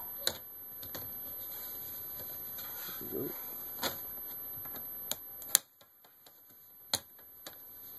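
Plastic screen bezel of a Dell Latitude E6510 laptop being pried off, its snap clips giving a series of sharp, irregularly spaced clicks, the loudest about five and a half seconds in.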